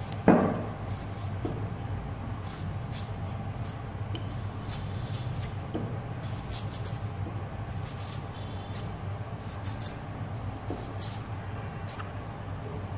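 A kitchen knife shaving the rough skin off a purple yam (khoai mỡ): a string of short, crisp scraping strokes over a steady low hum. A single sharp thump about a third of a second in is the loudest sound.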